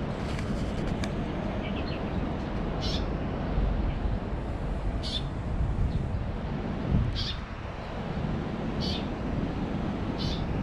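A bird repeating a short, high call every second or two over a steady low rumble.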